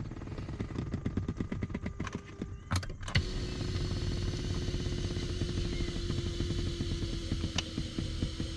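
Electric seat motors of a VW Touareg running as the power seat is driven forward and up: a fast pulsing drone for about three seconds, a few sharp clicks, then a steady motor hum.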